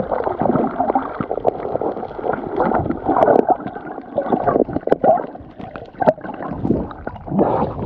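Water gurgling and bubbling as heard through a camera held underwater, muffled, with scattered sharp clicks.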